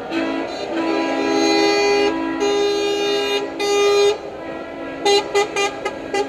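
Truck air horns blowing several long, held blasts that step between notes, then a rapid string of about six short toots near the end.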